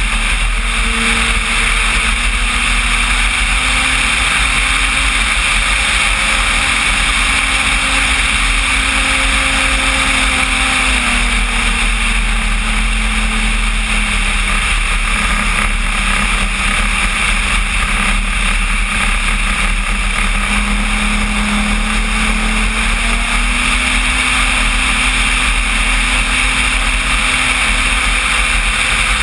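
Electric motor and propeller of a 9 kg RC Cessna 185 floatplane droning in flight, heard from a wing-mounted camera with a strong rush of slipstream wind. The prop tone slides lower a little before the middle as the throttle is eased, then climbs back up a few seconds before the end.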